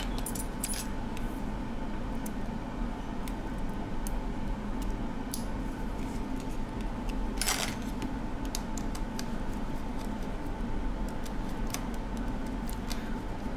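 Scattered small metallic clicks and clinks of a precision screwdriver and tiny screws as an iPhone 6 Plus's logic-board screws are taken out, with one longer clatter about seven and a half seconds in, over a steady low electrical hum.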